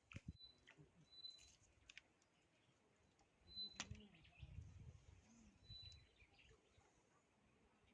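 Faint outdoor quiet with brief high chirps, one short note every two seconds or so, likely a bird, and a few soft clicks and knocks.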